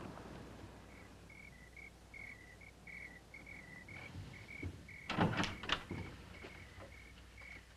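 Night-time crickets chirping in a steady run of short, even pulses. About five seconds in comes a brief cluster of wooden knocks and clatter, like a cabin door or steps on boards.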